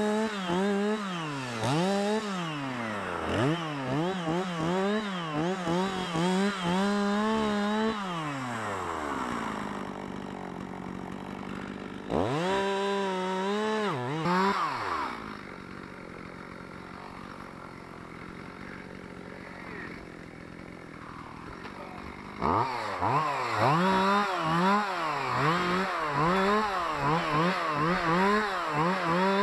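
Two-stroke chainsaw engine revved in quick repeated throttle blips. Around the middle it falls back to a quieter idle, apart from one short rev, and about two-thirds of the way through it starts revving again.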